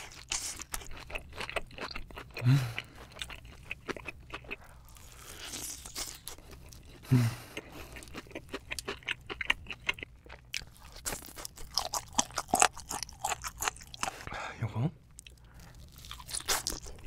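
Close-miked eating of spicy chicken: rapid crunching and chewing, with three deep short thuds spread through.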